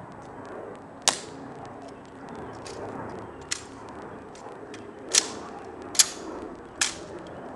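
Rifle inspection by the Tomb guard: sharp, crisp snaps as the M14 rifle is slapped and handled between the two soldiers. Five cracks come at uneven intervals, most of them in the second half.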